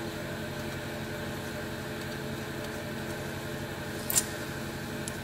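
A steady mechanical hum underneath, with a single short metal clink about four seconds in, made while the timing-belt idler pulley of a VW TDI engine is being undone by hand.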